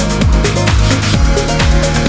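Electronic dance music with a steady, fast beat and a pitch-dropping bass drum.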